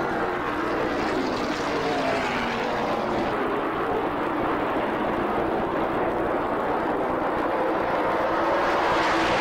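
NASCAR Modified race cars' V8 engines running flat out around the track, a continuous loud drone whose pitch wavers and glides as the cars pass, growing a little louder near the end.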